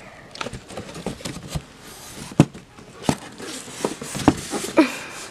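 Irregular knocks, taps and rustling of handling noise while the camera is carried and swung around, with a short falling tone near the end.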